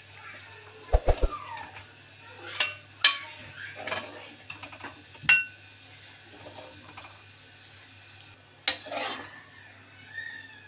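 Steel ladle scraping and clinking against a metal kadhai while thick curry is ladled into a bowl, with about half a dozen separate knocks and clinks.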